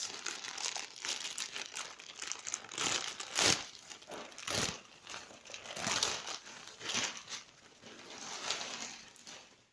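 Parcel packaging crinkling and rustling as it is handled and opened, in irregular bursts with a couple of louder crackles near the middle.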